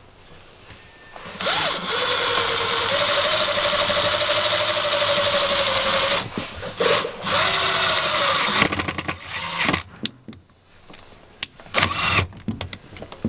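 Cordless drill-driver driving a long self-tapping screw through the wall panel into the van's sheet metal. The motor whine rises and holds steady for about four seconds, then comes in two short bursts as the screw bites and is snugged down. Light clicks and knocks follow as the driver is handled.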